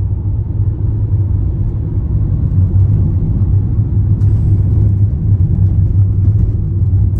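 Fiat Scudo van driving on a gravel road, heard from inside the cabin: a steady low rumble of tyres on gravel and the engine.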